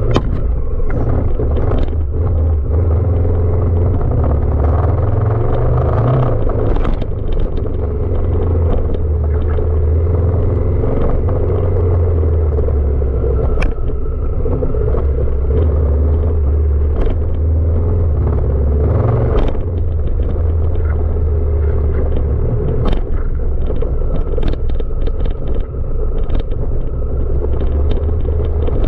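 Honda Africa Twin CRF1000 DCT motorcycle's parallel-twin engine running with a steady low rumble, broken by scattered sharp knocks.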